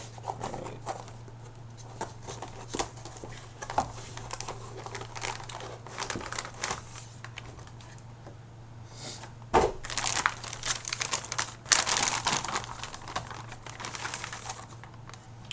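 Plastic and cardboard motherboard packaging being handled: scattered light knocks and rustles, then a louder stretch of continuous crinkling from about ten seconds in.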